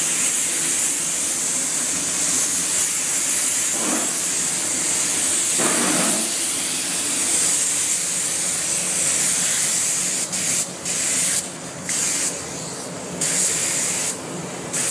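Compressed-air paint spray gun hissing steadily as it sprays base coat onto a car bonnet. From about ten seconds in the hiss stops and starts several times as the trigger is let off and pulled again.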